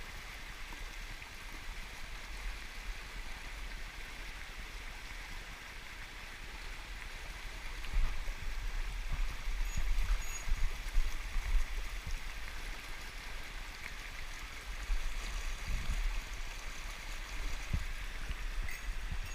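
Mountain stream running steadily, an even rush of water, with low rumbling bumps on the microphone that grow stronger from about eight seconds in.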